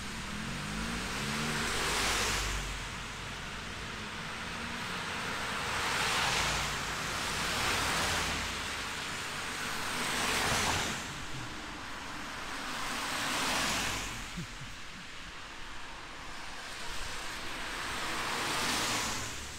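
Cars passing one after another on a wet road: the tyre hiss swells and fades about six times over a steady background noise.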